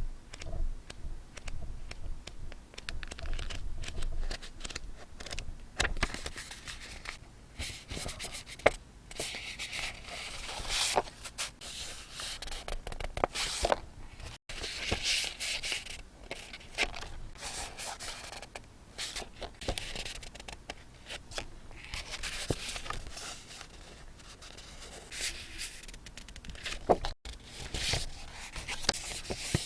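Close-up handling of paper and stationery: a busy run of rustling, scraping and crinkling with small taps and clicks, cut off for an instant twice.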